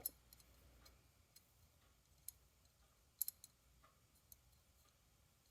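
Near silence with a few faint, sharp clicks: a single click, then a quick pair, then another. These are small handling noises from working on a toy's wheel hub.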